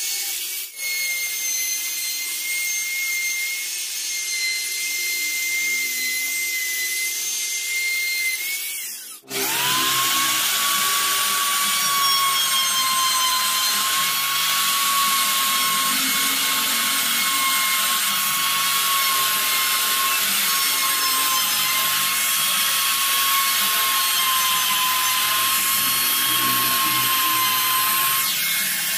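Davitec compact trim router running and cutting grooves in pallet wood: a steady high motor whine over cutting noise. It breaks off briefly about nine seconds in and resumes at a lower pitch.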